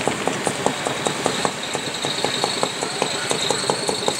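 Renegade-class garden pulling tractor's engine idling with an even beat of about five pulses a second. A steady high whine joins about a second and a half in.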